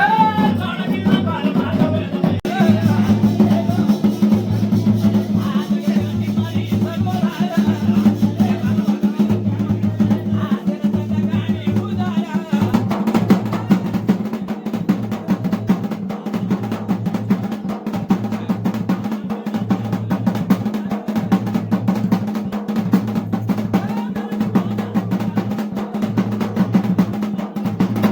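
Drum-led music of a mandan: fast, continuous drumming over a steady low hum, with the strokes growing denser about twelve seconds in.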